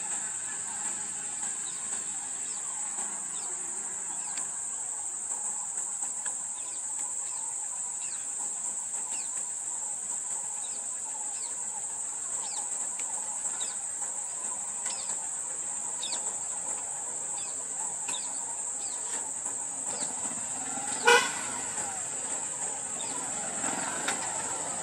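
Jungle roadside ambience: a steady high-pitched insect buzz with many short, falling bird chirps every second or so. About 21 seconds in, a single short vehicle horn toot, the loudest sound.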